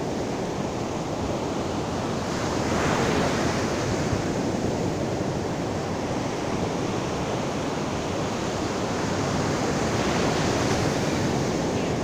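Sea surf breaking and washing up a sandy beach: a continuous rush of water that swells as waves break, about three seconds in and again near the end.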